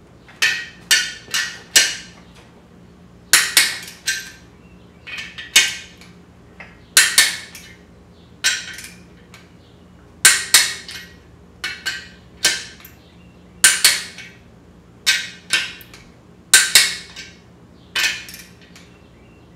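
Torque wrench clicking as the nuts on a VW Type 1 engine's case halves are tightened to 35 foot-pounds. Sharp metallic clicks come in short groups of two to four, one group every second or two.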